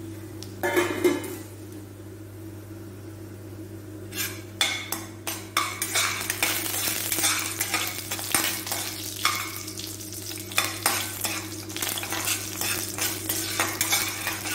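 A steel ladle scraping and clinking against a stainless steel kadai as whole spices (cinnamon, cloves, fennel seeds) fry in ghee at low flame, with a light sizzle. There is a brief clatter about a second in, then continuous stirring from about four seconds in, over a steady low hum.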